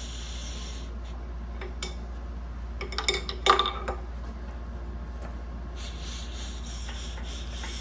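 Compressed air hissing out of the number-one spark plug hole of a Mercruiser 3.0 four-cylinder engine past a fingertip as the engine is turned over by hand: the piston is rising on its compression stroke toward top dead centre. The hiss runs for about the first second and again from about six seconds in, with a few sharp metal clinks around three seconds in.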